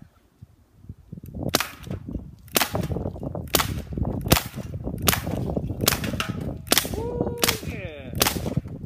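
Benjamin Wildfire PCP air rifle fired rapidly at cans: about nine sharp shots roughly a second apart, starting about a second and a half in.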